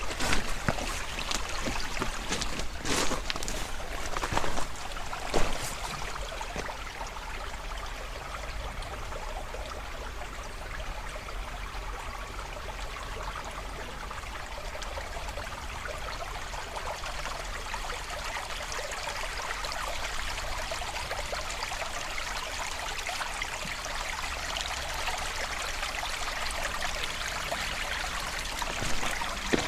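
A creek running: a steady rush and trickle of flowing water, with a few sharp knocks in the first six seconds.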